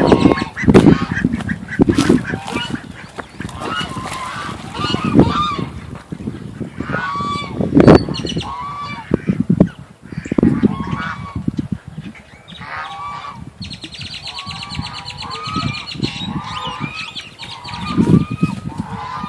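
Geese honking repeatedly in a flock, many short calls overlapping, with gusts of wind buffeting the microphone.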